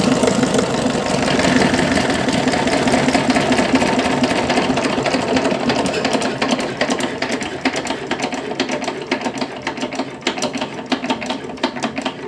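2105A two-cylinder diesel engine being shut off: it runs steadily at first, then about halfway through it slows and its firing beats become separate and uneven as it winds down, getting quieter.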